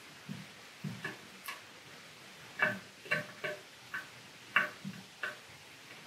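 About a dozen small, sharp clicks and taps at uneven intervals: hands handling the metal terminal and screw on the electrode end of a glass CO2 laser tube.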